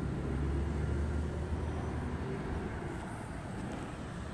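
Low rumble of a passing motor vehicle that slowly fades over a few seconds.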